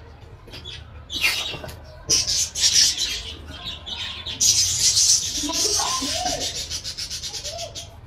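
Green ringneck parakeet chicks begging while being hand-fed, a raspy, rapidly pulsing food call that runs for about three seconds from midway, after a few shorter raspy bursts.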